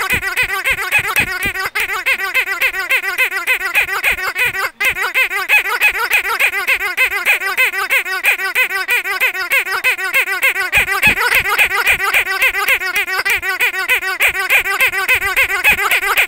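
Pink rubber squeaky dog toy squeezed over and over, giving a fast, even stream of high squeaks, several a second, each rising and falling in pitch.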